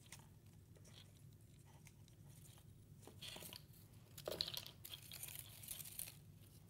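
Faint rustling and crinkling of a paper-covered cup puppet and wool string being handled while knots are tied, with a few small clicks; the handling gets busier in the second half.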